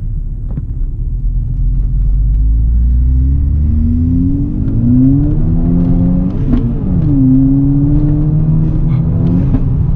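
Turbocharged 2.0-litre four-cylinder of a stage 2+ remapped, decatted and straight-piped VW Golf MK5 GTI accelerating hard, heard from inside the cabin. The note climbs steadily, drops at an upshift with a short click about six and a half seconds in, then climbs again.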